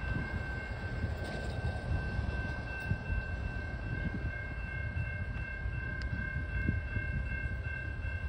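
Railroad crossing warning bell ringing steadily as the crossing gates lower, over wind rumbling on the microphone.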